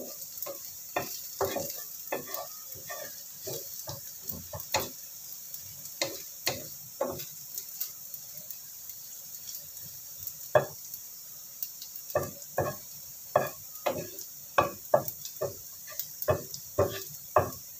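Wooden spatula stirring and tapping against a coated frying pan, short knocks about two or three a second with a lull in the middle, over a steady sizzle of shallots, garlic and ginger frying in oil until browned.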